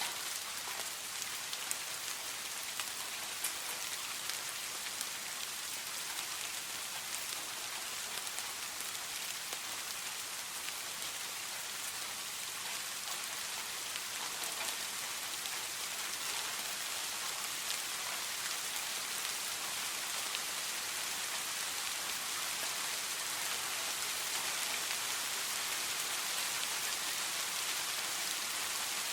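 Steady rainfall: an even hiss of rain with fine scattered drop ticks, constant in level throughout.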